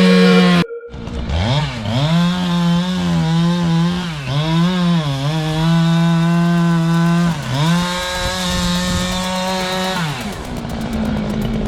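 Chainsaw running at high revs and cutting wood, its pitch dipping and recovering several times as the chain loads up in the cut. It drops to a lower, steadier running sound near the end.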